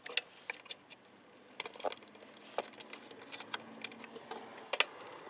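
Scattered light clicks and taps of fingers on the plastic DRL module housing and wiring connectors under the dash, with a sharper click near the end.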